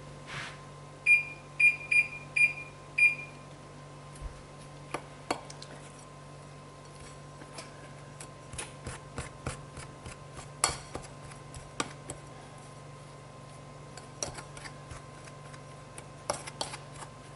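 An electronic oven control panel beeps five times in quick succession as the oven is set to 400 degrees. After that, a metal pastry blender clicks and scrapes against a ceramic bowl as shortening is cut into flour.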